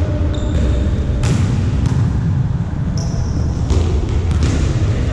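Volleyball play: a ball struck and bouncing on a court, with about four sharp hits and a few short high squeaks of shoes on the floor over a steady low rumble.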